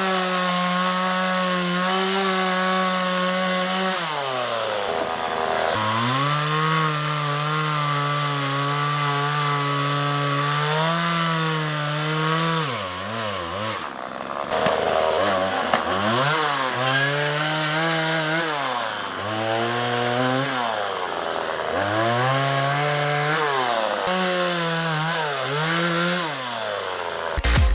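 McCulloch MAC 3818 two-stroke chainsaw revving hard while cutting through tree branches. Its pitch drops back toward idle about four seconds in and again several times later, then climbs as the throttle is opened for the next cut.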